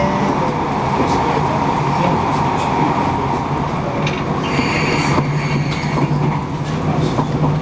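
Passenger train running at speed, heard from inside the carriage: a steady rolling rumble with a low hum. Faint high whines come and go from about halfway through.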